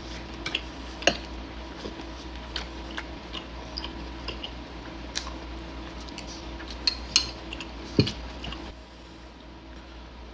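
Close-up eating sounds from a seafood boil: scattered wet mouth smacks and small clicks of chewing and handling food on a plate, with a few sharper clicks about a second in and around seven and eight seconds.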